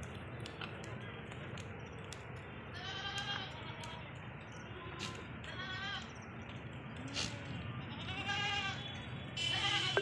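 Sirohi goats bleating: about three quavering bleats a few seconds apart.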